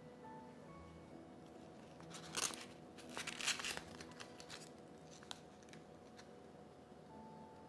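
Two short bursts of crinkling as wrapping material is handled, about two and three seconds in, over soft background music.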